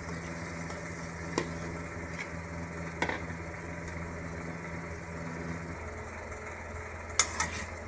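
A metal spoon knocking and scraping against a metal kadai a few times as boiled rice is tipped in and stirred into the vegetables, over a steady low hum. The knocks come about a second in, about three seconds in, and twice close together near the end.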